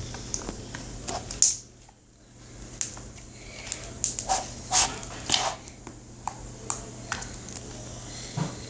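Paint-coloured slime being kneaded and pressed by hand, making irregular wet clicks and squelches, the loudest about a second and a half in and a cluster a little past the middle.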